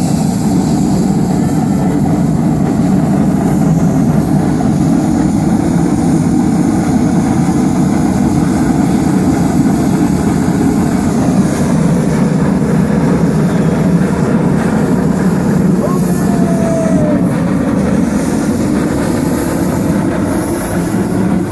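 Two TKh steam tank locomotives working hard against each other buffer to buffer: a loud, steady rush of escaping steam and exhaust that does not let up.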